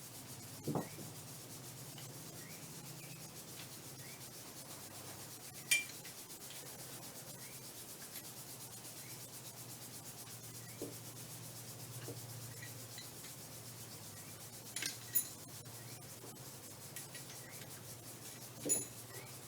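Light handling sounds: a few short knocks and clicks, spaced several seconds apart, from fittings and parts being handled during setup of a clutch actuator for bleeding. A faint steady low hum runs underneath.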